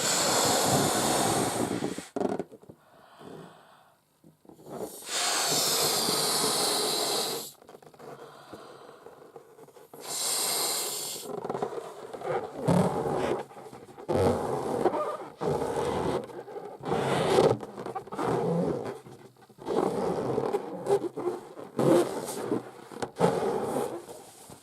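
Long acrylic nails scratching across an inflated rubber balloon: three long, loud strokes of about two seconds each in the first half, then quicker, irregular scratches and taps.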